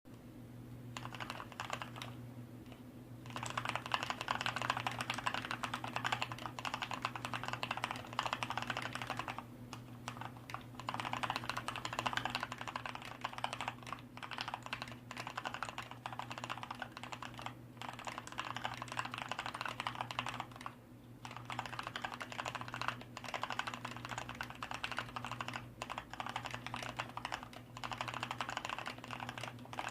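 Typing on a Hansung MKF1 Stealth mechanical keyboard with Kailh Black linear switches, its sliders and stabilizers lubed and sound dampening added: fast, continuous keystrokes broken by a few short pauses.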